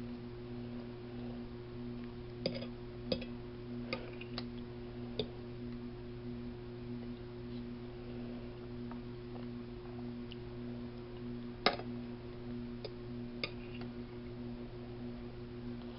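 A person eating: scattered short clicks and smacks of chewing, about ten in all, the sharpest a little before the end, over a steady low hum.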